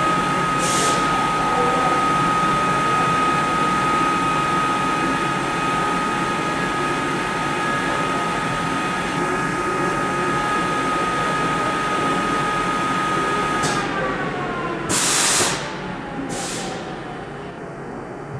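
Haas vertical machining centre running with a steady high whine and its overtones; about 14 s in the whine slides lower in pitch and keeps falling. Short hisses come near the start and twice near the end, the first of the late ones the loudest sound.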